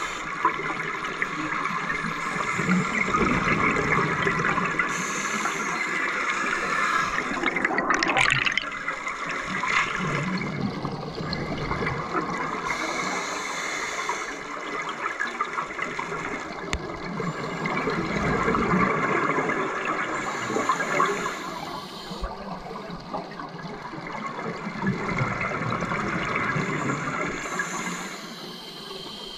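Scuba divers' regulator exhaust bubbles rushing and gurgling underwater, swelling and fading in several long surges as the divers breathe out.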